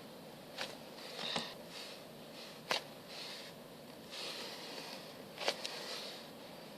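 Foam squishy toys being handled and squeezed: faint soft rustling with a few small sharp clicks, the loudest about two and a half and five and a half seconds in.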